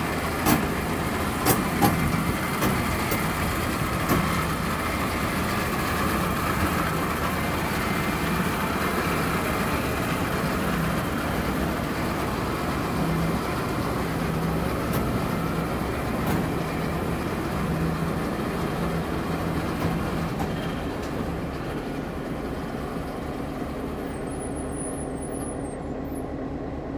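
Diesel-electric locomotive idling steadily on a railway turntable as the turntable turns, with a low engine hum and a few sharp metallic clanks in the first few seconds. The sound eases off slightly near the end.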